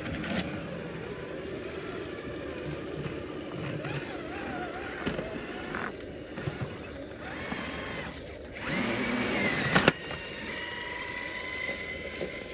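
Electric motors and geared drivetrains of RC scale rock crawlers whining, the pitch rising and falling with the throttle, louder for a second or so before breaking off sharply about ten seconds in.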